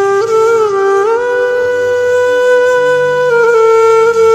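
Background music: a slow melody on a flute-like wind instrument, long held notes that step up about a second in and step down again after about three seconds.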